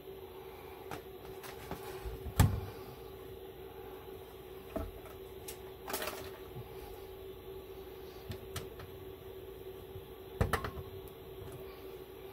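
Plastic UV-light housing knocking against a sheet-metal HVAC duct as it is held and pressed into position: a few sharp knocks, the loudest about two seconds in and a double knock near the end, over a steady hum.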